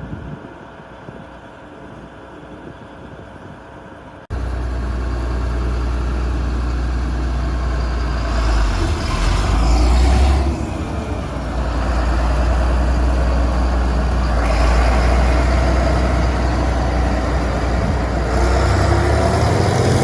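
Large diesel farm machinery running steadily, heavy and low, much louder from about four seconds in. A rising whine comes in near the end.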